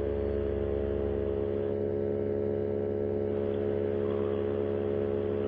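Paramotor engine and propeller running at a steady cruise setting in flight, an even drone with a constant pitch. The propeller has been repaired and rebalanced, and the engine seems to be running a lot smoother.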